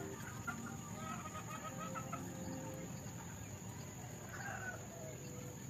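Chickens clucking faintly, with a run of short calls between about one and two seconds in and a few more just past four seconds.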